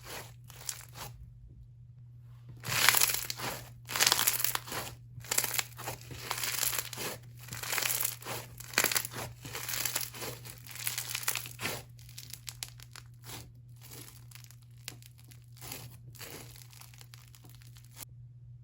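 Bingsu slime full of small crunchy plastic beads being squished and stretched by hand, crackling and crunching in irregular bursts that die down near the end.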